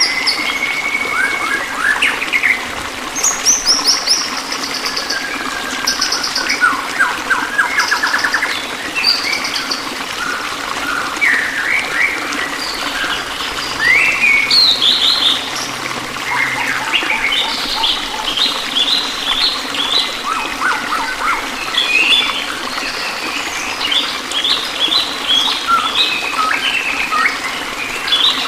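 Several songbirds chirping and trilling in quick calls, short repeated trills and rising sweeps, overlapping one another, over a steady trickle of running water.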